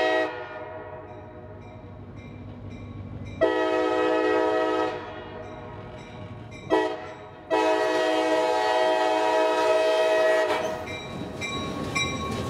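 A CSX diesel locomotive's multi-chime air horn sounds the grade-crossing signal: the end of a long blast, a second long blast, a short one and a final long blast of about three seconds. The locomotive then rumbles past on the rails.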